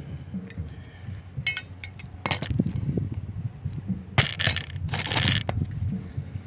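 Several sharp clattering impacts, then two longer crashes about four and five seconds in, like hard brittle material breaking or being dropped.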